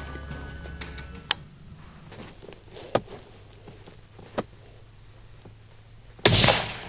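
A few faint clicks in the quiet, then about six seconds in a single loud shot from a scoped bolt-action hunting rifle fired at a whitetail buck, dying away over half a second.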